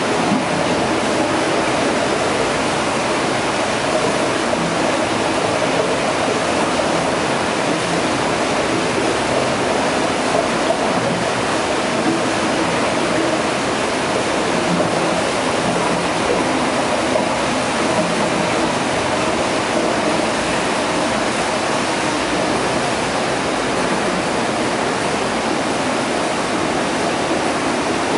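Filtered water spilling over the level-control weir of a water-treatment filtration unit into a tiled chamber: a steady, even rush of falling water.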